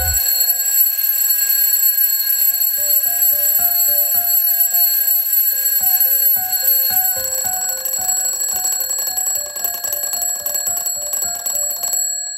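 Twin-bell alarm clock ringing steadily, cutting off suddenly near the end. A simple melody plays underneath.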